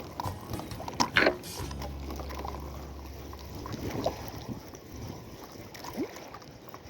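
Low steady hum of a motorboat engine out on the water, with wind on the microphone and a short clatter about a second in.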